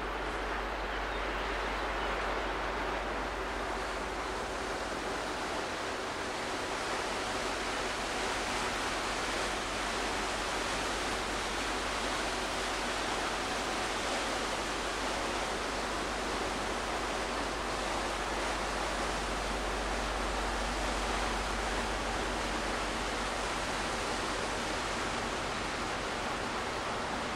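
Steady rushing hiss of wind on the microphone, with a steady low rumble underneath.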